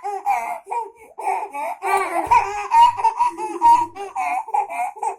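A baby laughing and babbling in quick, high-pitched bursts that rise and fall in pitch, with short breaks between them.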